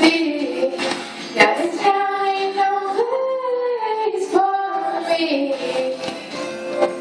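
A girl singing solo into a handheld microphone, amplified through a PA, holding long notes that bend and slide in pitch.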